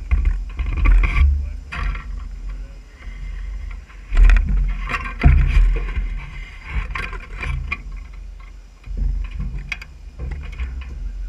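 Irregular knocks and clunks of hands and feet on a junk car's sheet-metal hood and roll bar as a person climbs out onto it, over a low rumble on the microphone.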